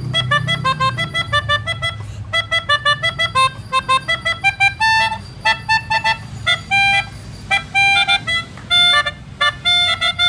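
Two melodicas (pianikas) playing telolet tunes, the melodies of Indonesian bus horns: a quick run of short notes, then from about five seconds in, longer held notes in short phrases separated by gaps.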